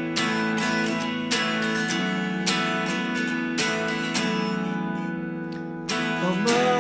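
Song intro on acoustic guitar: full chords strummed about once a second and left to ring.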